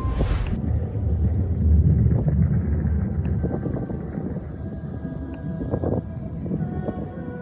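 Deep, uneven low rumble with faint held tones above it. It is loudest in the first two seconds and eases off after about four seconds.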